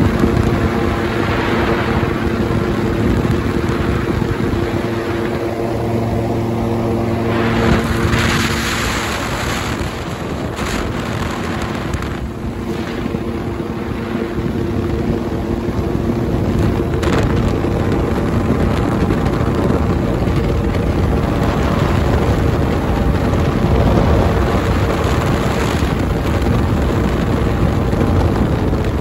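Ultralight trike's engine and propeller running steadily at takeoff power during liftoff and climb, with wind buffeting the microphone.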